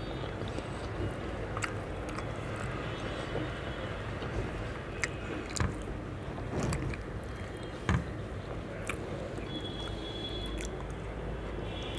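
Eating by hand from a steel plate: chewing and mouth sounds with fingers squishing and mixing rice and chicken curry, and a handful of short sharp clicks. A steady low hum runs underneath.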